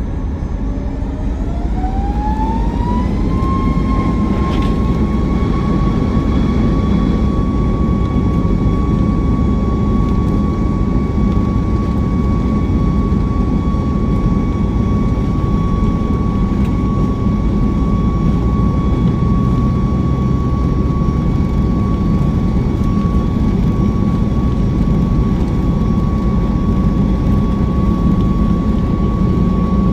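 Jet airliner's engines spooling up to takeoff thrust: a whine climbs over the first few seconds, then holds steady over a heavy low rumble as the takeoff run goes on.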